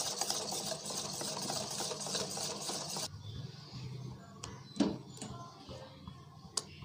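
Whisk beating thick besan (gram flour) batter in a steel bowl, a fast rattling scrape of strokes that stops suddenly about three seconds in. After it come a few soft clicks and one knock against the bowl.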